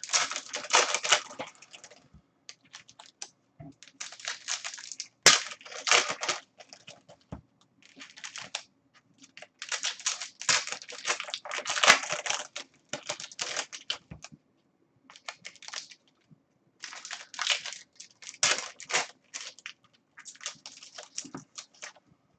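Foil wrappers of trading card packs crinkling and tearing as they are ripped open and handled, in irregular bursts with short gaps, and a sharp snap about five seconds in.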